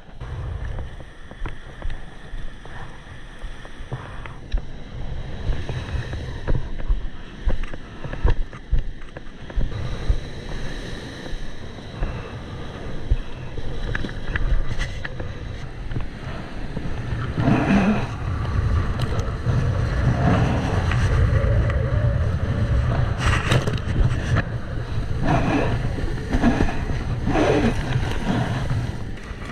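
Wind buffeting the microphone over rushing, splashing water, as on a kiteboard ride. The rush swells into several louder surges in the second half.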